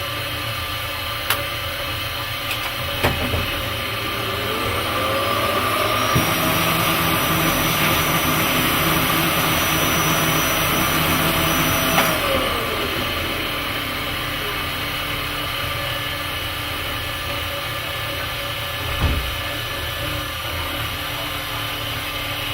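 DIY CNC machine's spindle running and milling a cast aluminium part, a steady loud machining noise. A pitched tone rises about four seconds in, holds, and drops away about twelve seconds in, with a few short clicks along the way.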